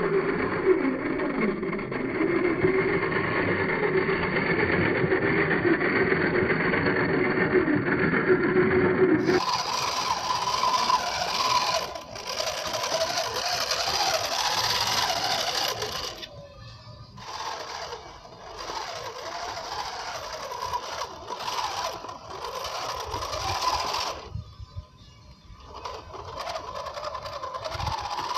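Small electric geared drive motor of a homemade 1/10-scale RC dump truck whining steadily as the truck drives with a full load. The whine changes pitch about a third of the way in and stops briefly twice in the second half.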